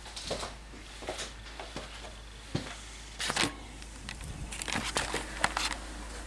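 Irregular light knocks and clicks, a dozen or so scattered over several seconds, with a louder cluster about three seconds in and more near the end.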